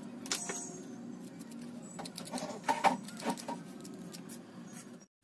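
Small scattered clicks and scratches of a metal pick and soldering iron working at a stabilizer circuit board to take off its burnt diodes, over a low steady hum.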